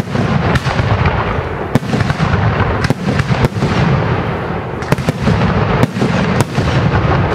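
Aerial fireworks shells bursting overhead: about eight sharp bangs at irregular intervals over a continuous dense rush of sound.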